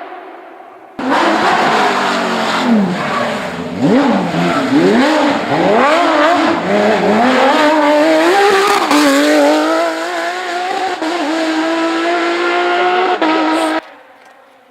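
Porsche 911 GT3 rally car's flat-six engine at racing speed. Its revs drop and climb sharply several times through quick gear changes, then rise steadily under hard acceleration. The sound starts abruptly about a second in and cuts off abruptly near the end.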